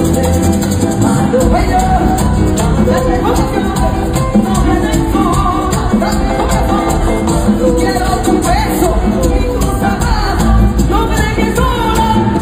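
Live merengue band playing an up-tempo number with singing, heard from the stands of a large arena.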